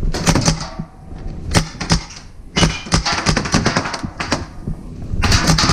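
Paintball markers firing in rapid strings of sharp pops, in several bursts: about a third of a second in, around three seconds in, and near the end.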